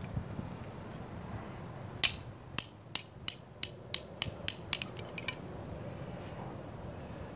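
A Mora knife being batoned through a thin stick with the back of a small hatchet: about ten sharp metal taps, roughly three a second, starting about two seconds in, the first the loudest and the last few fainter. The stick is being split to make a torch.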